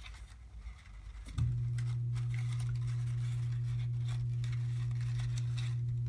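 Paper flaps being folded and pressed by hand, with faint rustles and small taps. About a second and a half in, a steady low hum starts abruptly and runs on.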